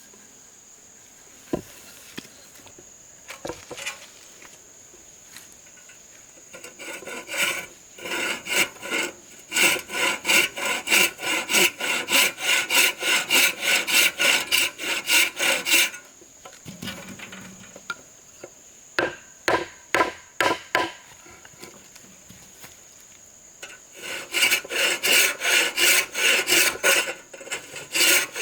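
A hand tool worked back and forth on wood in quick strokes, about two a second, in long runs with a pause in the middle. Insects keep up a steady high drone in the quieter gaps.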